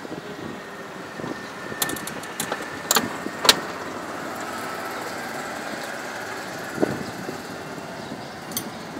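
Steady engine drone of running ground machinery, with a few sharp clicks between about two and three and a half seconds in and a dull knock near the end.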